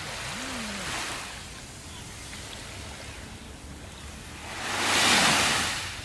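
Small sea waves washing up a sandy beach: a soft surge of hiss in the first second, then a bigger wave that breaks and runs up the sand, swelling and fading about five seconds in.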